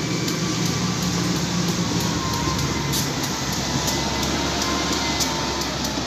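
Heavy diesel machinery running steadily: a low engine hum under a continuous rushing noise.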